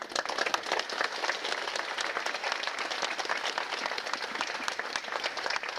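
A large crowd applauding, many hands clapping at once at a steady level.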